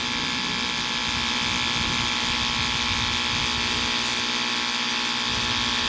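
Ryobi One+ 18-volt cordless pressure washer running steadily: the electric pump motor makes a steady hum, and the water jet hisses against a greasy engine oil pan on asphalt.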